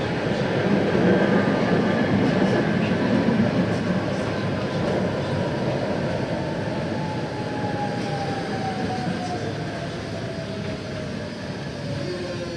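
Tatra T6A5 tram running along the track: a steady rumble of wheels on rails with a few faint clicks. From about halfway, a whine from its traction equipment falls steadily in pitch as the tram slows, and the rumble eases.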